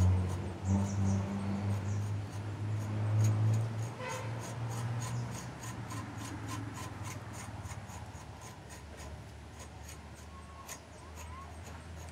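Hand-scraping of the outer bark from a fresh cinnamon branch: a train of short, sharp scraping strokes, about three a second, the first step in making cinnamon sticks. Under it, a low steady drone is loudest over the first few seconds and fades out.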